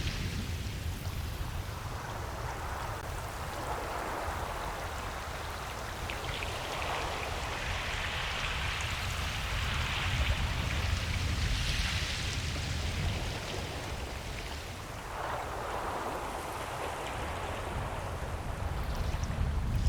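Ocean waves breaking and washing up a beach, the surf swelling and fading every few seconds over a steady low rumble.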